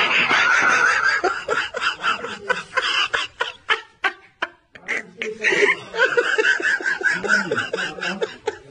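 Hard laughter in a run of short, breathy bursts, easing off briefly about four seconds in and then picking up again.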